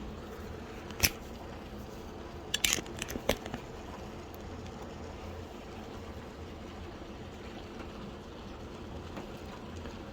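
Small metal clicks from mortise lock hardware being handled and fitted: one sharp click about a second in, then a quick cluster of clicks and taps about three seconds in, over a steady low hum.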